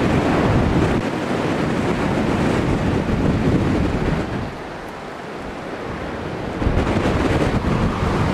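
Strong gusty wind buffeting the microphone, over the rushing roar of a twin-engine business jet coming in to land. The noise eases about four and a half seconds in and swells again near seven seconds.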